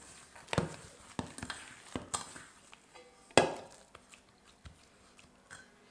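Hands patting and smoothing oil over a ball of dough in a stainless steel bowl, with a handful of sharp taps and knocks, the loudest about three and a half seconds in.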